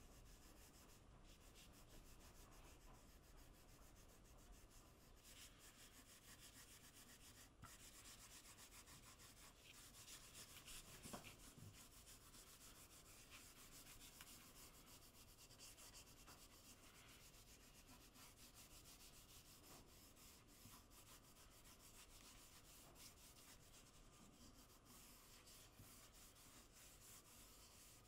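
Faint, steady rubbing of a cloth pad over a bare softwood board as antique wax is worked into the grain.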